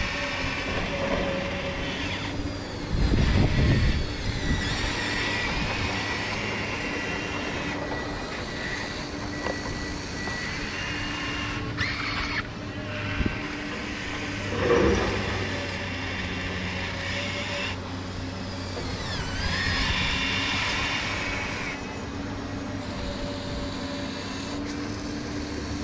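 Electric motors of a Huina RC excavator whining as it swings and works its boom and bucket, the pitch rising and falling with each move over a steady low hum. Louder bursts of noise come about three seconds in and again midway.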